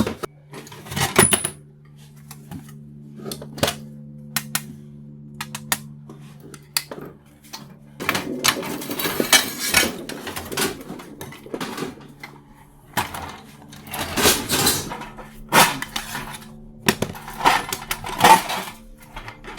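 Brass scrap parts clinking and clattering as they are handled and dropped among other metal, with repeated sharp clicks and a few longer rattling, scraping stretches. A faint steady low hum runs underneath.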